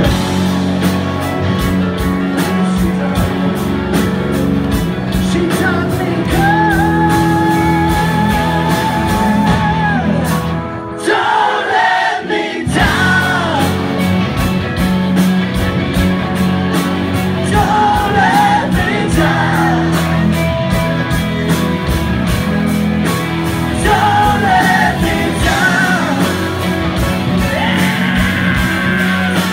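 Live rock band playing, with electric guitars, a steady drum beat and several voices singing together.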